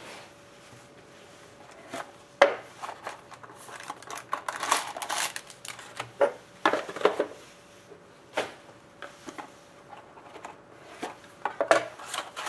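Cardboard trading-card boxes being handled and opened and a foil-wrapped card pack set down on a hard tabletop: scattered knocks, scrapes and rustles, the sharpest knock about two and a half seconds in.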